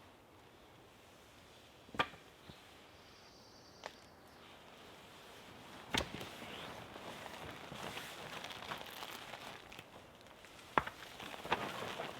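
Quiet rustling and crinkling with a few sharp clicks and knocks, the sharpest about two, six and eleven seconds in; the rustling grows busier from about six seconds on.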